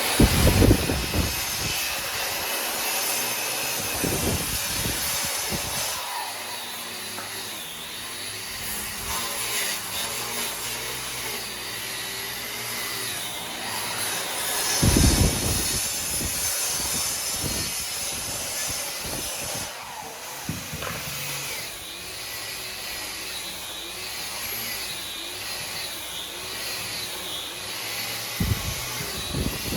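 Power woodworking tools cutting and shaping wood, running with a continuous noisy whine that wavers in pitch, with a few louder knocks along the way.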